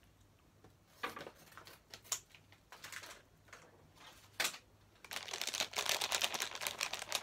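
Crinkly plastic snack packet being handled: scattered rustles and clicks at first, one sharp click a little past four seconds, then dense continuous crinkling from about five seconds in.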